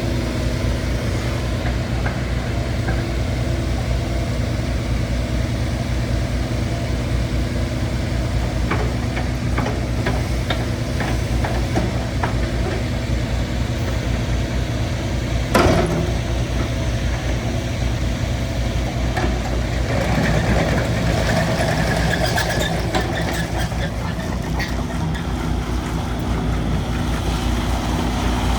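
Kubota U50-5 mini excavator's diesel engine idling steadily, with scattered clicks and one sharp knock about halfway through.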